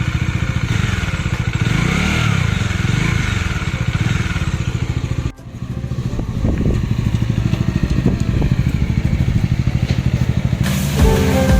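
Bajaj Dominar 400's single-cylinder engine running at idle with a steady, even beat, freshly refilled with oil; the sound breaks off briefly about five seconds in.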